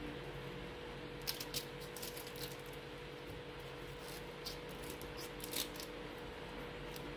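Small knife scraping scales off fresh sardines and cutting into the fish: short, irregular scratchy scrapes, a few louder ones in the first half, over a steady hum.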